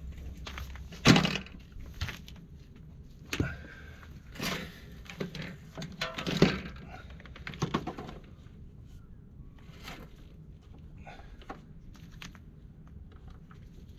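Irregular sharp knocks and clatters over a low steady hum, the loudest about a second in, thinning out toward the end.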